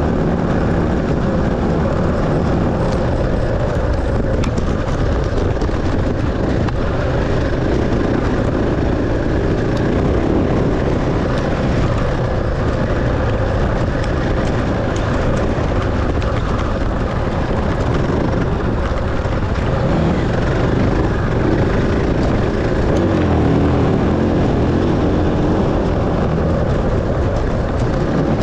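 Enduro dirt bike engine running hard, its revs rising and falling, under a dense rush of noise.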